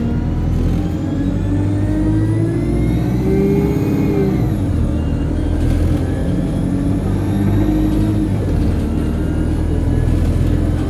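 Alexander Dennis Enviro200 bus engine pulling under acceleration, with a high turbo whine that rises with engine speed, drops about five seconds in, rises again and dips once more near the end.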